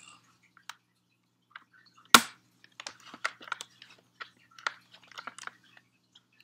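Metal packaging clips being worked off a plastic model horse: a loud sharp snap about two seconds in, then a run of small clicks and crackles.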